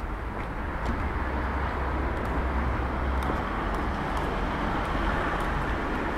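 Outdoor street ambience: steady traffic noise with a low rumble, slightly louder from about a second in.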